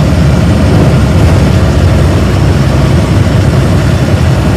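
Tourist bus's diesel engine and road rumble heard from inside the cabin while it drives: a loud, steady low rumble.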